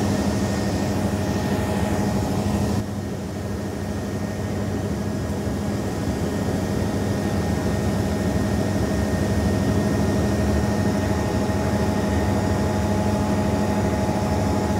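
Helicopter engine and rotor drone: a steady hum with a constant whine over a rushing hiss. The level drops a little about three seconds in, then creeps back up.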